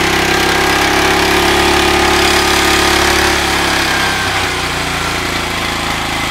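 Small engine running on a home-built electronic fuel injection system in open loop, running too rich. It runs steadily, and about four seconds in its sound drops a little and shifts.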